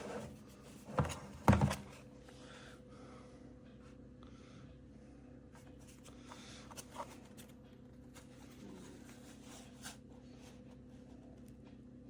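Two sharp knocks about a second and a half in, then a few soft clicks over a faint steady hum.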